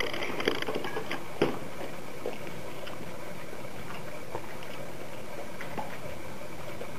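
Standard poodle in a clear plastic cone collar at its water bowl: light clicks and knocks of the cone and bowl, densest in the first second and a half with one sharper knock, then scattered soft ticks.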